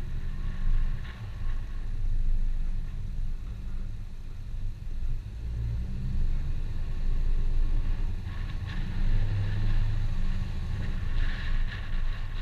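Low, steady rumble of a yellow Chevrolet Camaro driving slowly, heard from a GoPro mounted on the car's roof, swelling and easing with the throttle.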